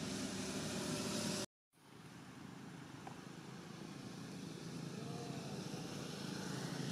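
Steady outdoor background noise with a low rumble like distant motor traffic. It cuts out completely for a moment about a second and a half in, at an edit, and fades back up.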